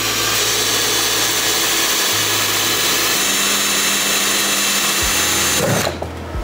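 Bosch 18 V cordless drill running at a steady speed while drilling a bolt hole through the motorbike cowl's fixing point. It stops near the end.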